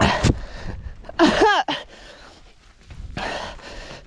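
A mountain-bike crash: a sudden thump and clatter as the rider and bike go down into young pine trees, then a short pained cry whose pitch drops, about a second in, and a rustle near the end.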